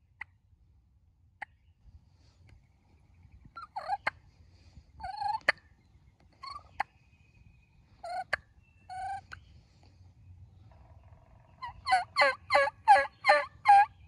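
Turkey calling: a few scattered single notes with sharp clicks between them through the middle, then near the end a loud run of six quick notes, about three a second.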